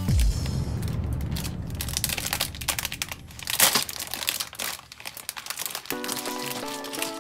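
A thin plastic polybag of LEGO bricks crinkling as it is handled and pulled open, with one sharp crackle about halfway through. Background music with steady notes comes back near the end.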